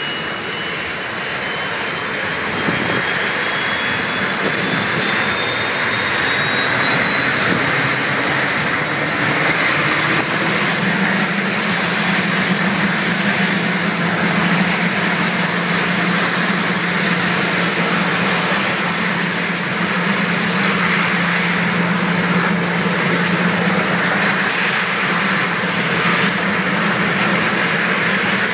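General Electric J85 turbojet of a jet dragster starting up. Its high whine climbs steadily in pitch for about ten seconds as the turbine spools up, then holds at one steady pitch, with a low hum joining it about ten seconds in.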